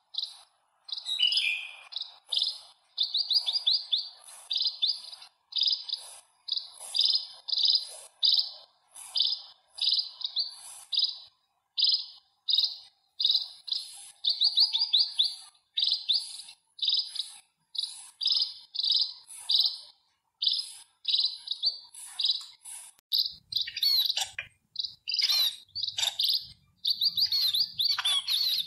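Sparrow chirping: short, repeated cheeps about twice a second. Near the end the chirps become denser and more jumbled, with a faint low rumble under them.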